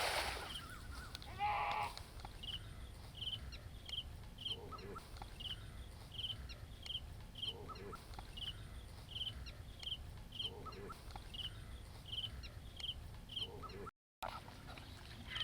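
Faint bird calls: a short high note repeated about twice a second, with a lower call every few seconds and a louder call about a second and a half in.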